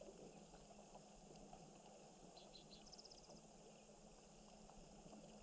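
Near silence with a faint steady hiss and low hum. About halfway through comes a brief small bird call: three quick high chirps, then a short, fast trill.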